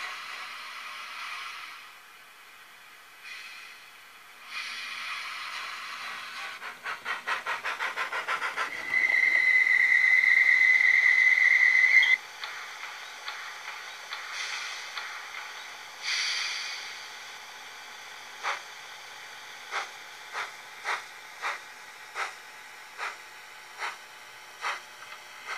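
Sound decoder of a Brawa model of the PKP Pt31 steam locomotive playing steam sounds through its small speaker: hissing, a run of quick chuffs, then one long steady whistle of about three seconds, the loudest part. After more bursts of hiss it gives slower exhaust chuffs, roughly one to two a second, toward the end.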